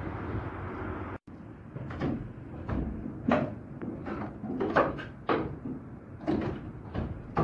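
A steady rushing noise, then, after a brief break, the wooden gearing of a working windmill: the large cogged wheel's wooden teeth creak and knock irregularly as it turns, roughly one to two knocks a second.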